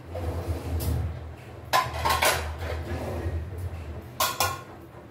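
Stainless steel kitchenware clanking: a few sharp, ringing clanks about two seconds in, then a quick double clank near the end as a steel lid is set over a steel mixing bowl.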